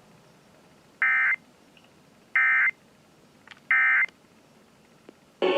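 Emergency Alert System end-of-message signal: three short, identical digital data bursts, each about a third of a second long and about 1.3 seconds apart, marking the end of the required monthly test. A louder, fuller sound starts just before the end.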